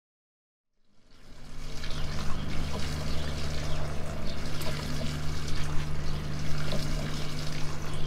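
Water trickling and splashing over stones in a small garden pond waterfall, fading in about a second in, with a steady low hum underneath.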